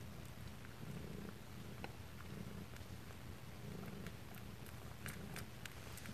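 Domestic cats purring while the kittens nurse: a soft, low, pulsing purr, with a few faint clicks.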